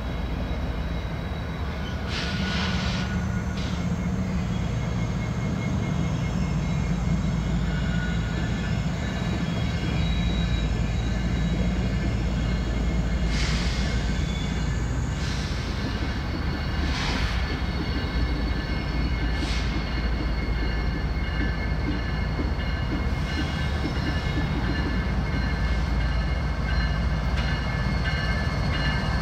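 Diesel freight locomotives approaching: a steady low engine rumble that grows a little louder, with thin high steady tones over it and a few short rushes of noise.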